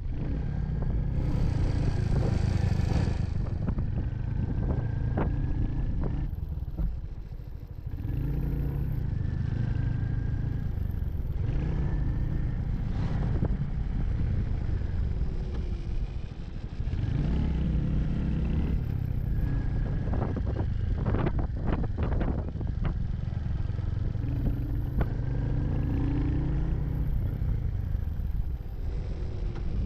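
Royal Enfield Hunter 350's single-cylinder engine running as the bike is ridden, easing off briefly twice and picking up again. Sharp clattering knocks from the bike about two-thirds of the way through.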